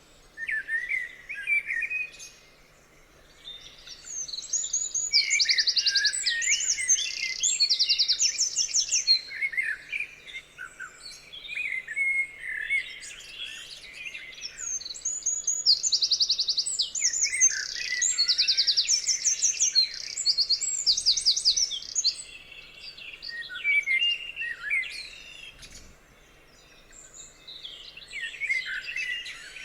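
Songbirds singing: a busy mix of chirps, whistles and fast high trills in overlapping bursts, with brief lulls about three seconds in and near the end.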